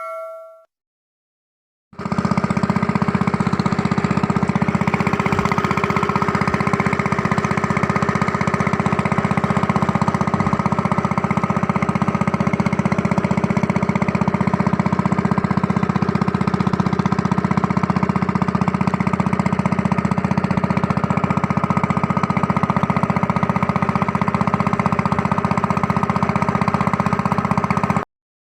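An engine running steadily at an even speed, starting abruptly about two seconds in and cutting off abruptly just before the end.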